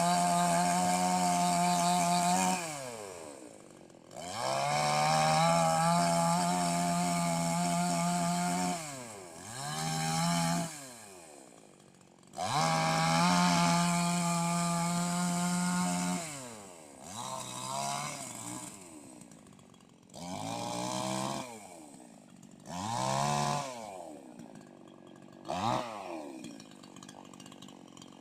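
Petrol chainsaw revved to full throttle and held for a few seconds, then released so the engine note falls away, three times over. This is followed by four ever shorter throttle blips, and the saw settles to a faint idle near the end.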